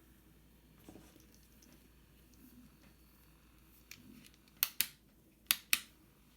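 Sharp clicks in two quick pairs about a second apart, the loudest sounds here, after a few faint ticks and soft taps.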